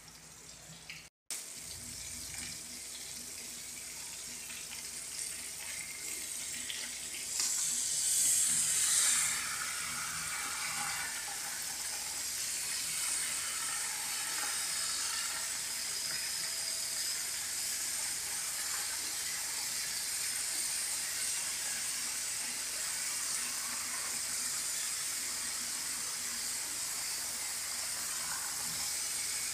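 Flour-coated tilapia pieces frying in a pan of hot oil: a steady sizzle that swells for a couple of seconds about a quarter of the way in. It comes after a second of a pot of corn boiling and a brief cut-out.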